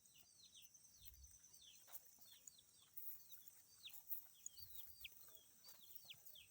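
Faint bird chirps: many short, high calls, each sweeping quickly downward in pitch, a few every second.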